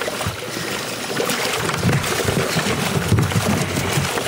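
Water splashing and sloshing in a boat's livewell as hands grab a largemouth bass, with irregular dull knocks that grow heavier about halfway through.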